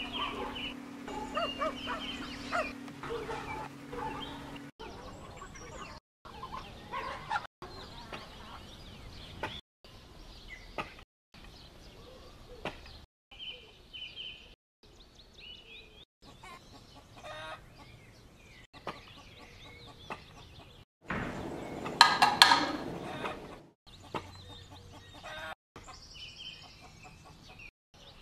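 Chickens clucking in the background, broken into short stretches by brief silences at edits. One loud noise lasting about a second and a half comes about three-quarters of the way through.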